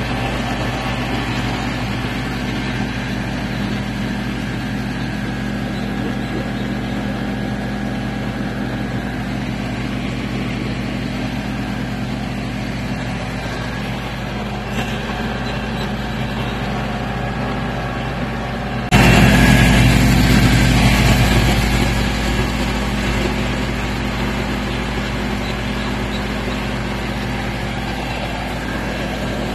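Kalmar container handler's diesel engine idling steadily. About two-thirds of the way through, a sudden louder rush of noise comes in and fades back over a few seconds.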